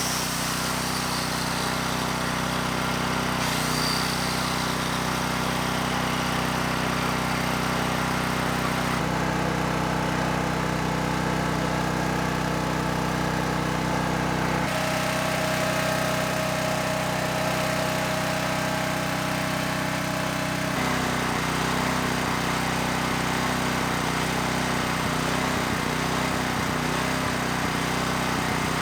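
Briggs and Stratton Storm Responder portable generator engine running steadily, its tone shifting a few times.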